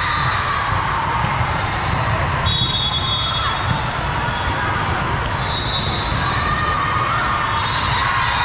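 Steady din of a large volleyball hall: many voices, volleyballs being struck and bouncing in a few sharp knocks, and a couple of high held whistle blasts.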